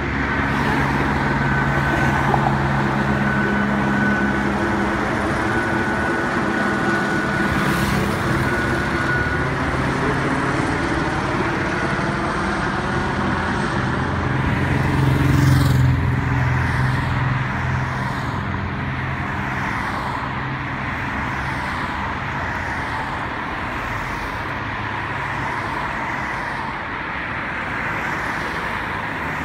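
Team support cars of a cycling race convoy driving past one after another, with engine and tyre noise. One passes loudest about halfway through.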